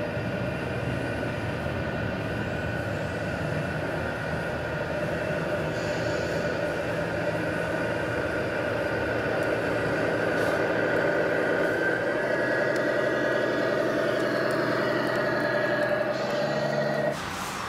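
Radio-controlled semi-truck's engine sound module playing a steady diesel-engine drone as the model truck drives slowly; the drone shifts slightly about twelve seconds in.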